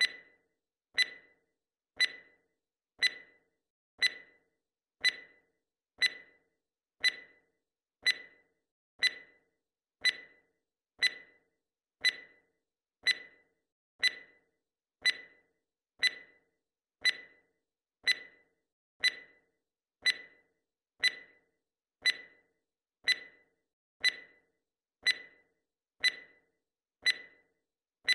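Countdown timer's clock-tick sound effect, one short sharp tick each second, evenly spaced.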